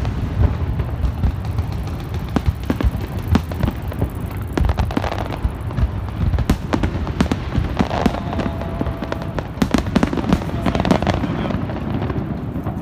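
Fireworks display: aerial shells bursting in quick succession, many sharp bangs one after another over a continuous low rumble.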